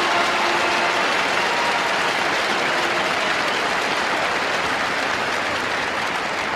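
Large arena crowd applauding, a steady dense noise that eases off a little toward the end.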